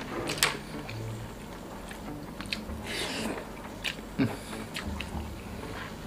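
A person eating by hand: chewing and mouth smacks, with small clicks and rustles as fingers pick rice from a plastic meal tray.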